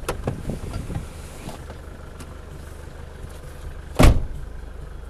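Four-wheel-drive's engine idling steadily, heard from inside the cabin. A few knocks and rattles come in the first second, and the driver's door is shut with one loud thump about four seconds in.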